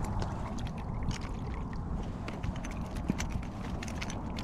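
Scattered light knocks and clicks over a steady low rumble, as a just-landed redfish is handled aboard a kayak.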